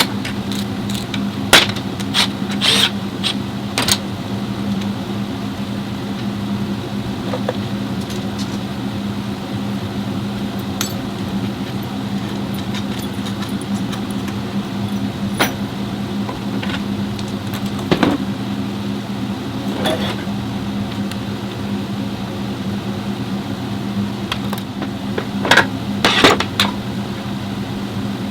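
A car's engine running at a steady low hum that holds one pitch, with scattered metallic clinks and knocks over it, a cluster of louder ones near the start and again near the end.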